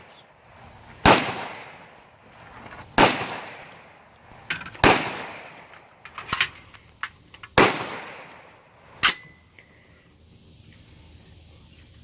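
Five semi-automatic rifle shots from a 6.5 Grendel AR-15 with a 20-inch heavy barrel, fired about every two seconds with a ringing echo after each, and fainter pops and clicks between them.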